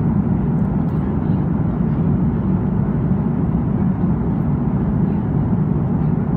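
Steady, low cabin noise of an airliner at cruise altitude: the engines and rushing airflow heard from inside the cabin at a window seat, even and unbroken.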